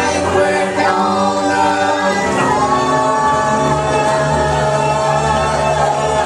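Live band music with singing; from about two and a half seconds in, several voices hold long notes together over a steady bass.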